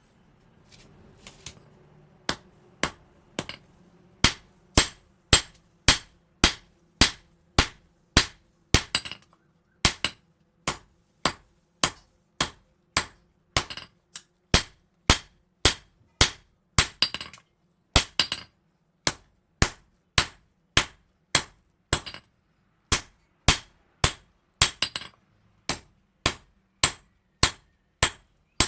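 Hammer blows on steel at an anvil, forging a knife blade from an old leaf spring: sharp ringing strikes in a steady rhythm of about two a second, a few of them coming as quick double taps. A faint steady hum sits under the first few seconds.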